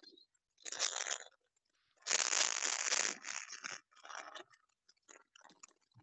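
Crunching, rustling noise in two bursts, a short one about a second in and a longer, louder one at about two seconds, followed by scattered small clicks and crackles.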